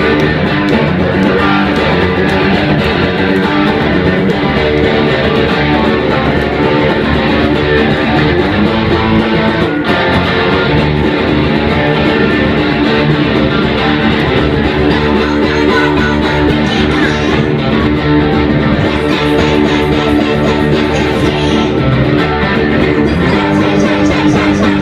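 Punk rock band playing live and loud: strummed electric guitar over bass guitar, with no vocals.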